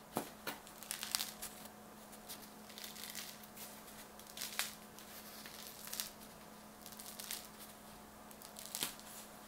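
Crisp baguette crust crackling and crunching as hands squeeze and turn the loaf, in irregular clusters of small sharp cracks, densest in the first second and again near the end.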